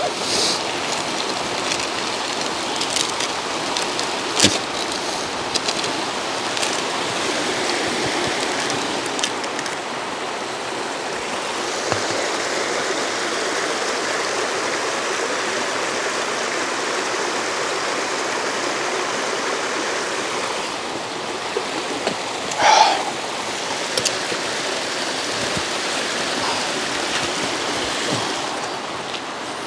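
Small mountain creek cascading over rocks: a steady rush of running water. A few faint clicks sound early on, and one brief, louder sound comes about two-thirds of the way through.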